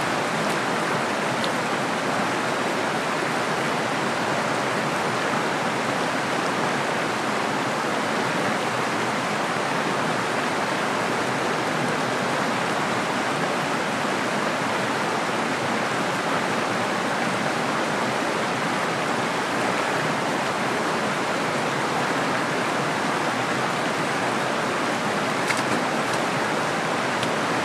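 Small, rocky mountain creek rushing over boulders and riffles: a steady, even rush of water.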